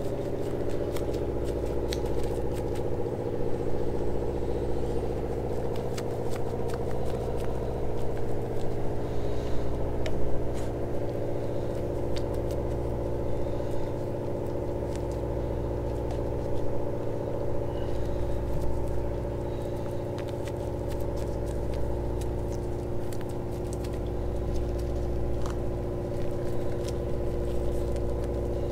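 Steady mechanical drone of a motor running, several held tones over a low hum that dips briefly every few seconds, with faint light ticks and dabs of a brush working wet resin into fiberglass cloth.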